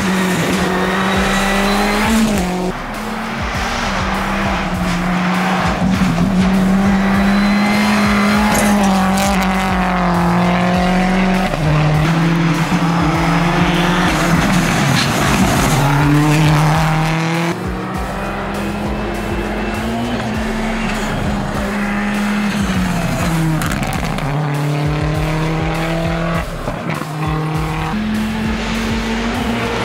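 Audi A1 rally car's engine revving hard on a tarmac stage, its pitch stepping up and down with throttle and gear changes, with tyre noise.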